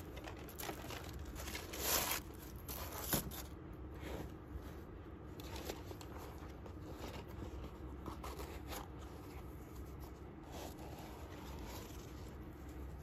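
Rustling and scraping as hands work a new Norda 001 trail running shoe in its tissue-paper-lined box: laces drawn through the eyelets, fabric and tissue paper crinkling, and the foam insole pulled out. The loudest rustle comes about two seconds in, with a sharp tap a second later.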